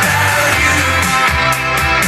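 Pop-rock song with guitar and a steady bass line, played through a JBL TLX 14 two-way bookshelf speaker (woofer and titanium-dome tweeter).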